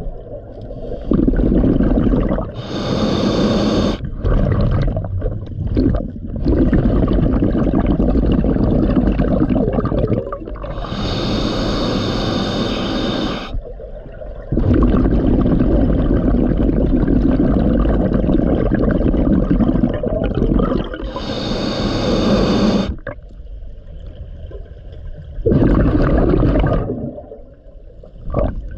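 Scuba regulator breathing underwater: a loud hissing inhale about every ten seconds, between long rumbling streams of exhaled bubbles.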